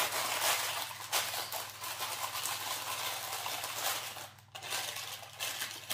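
Baking paper rustling and crinkling as it is pressed and folded into a metal baking tray, with a brief lull a little past four seconds. A low steady hum runs underneath.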